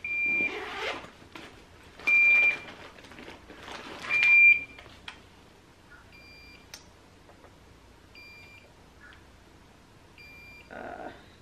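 A portable IV infusion pump sounding an alarm: a short, high, steady beep about every two seconds, the pump acting up while it runs fluids. The first three beeps are loud and come with the rustle of the pump's backpack being handled; the later beeps are fainter.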